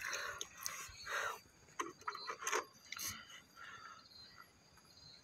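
Wet fingers rubbing and squeezing mud on a leaf, with water poured over them: short, irregular squelching and scraping noises that thin out after about three seconds.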